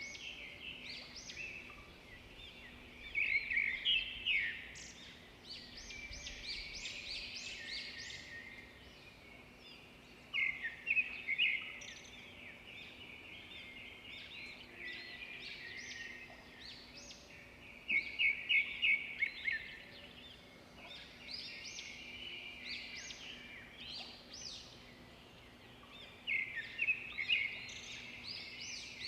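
Songbirds singing, with one bird repeating a loud, rapid trilled phrase about every eight seconds and softer chirps in between.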